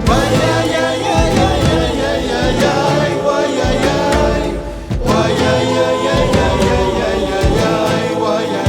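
Music: a polyphonic choir singing in an Andean folk song, with instruments underneath. A short break comes about halfway through, then a new sung phrase begins.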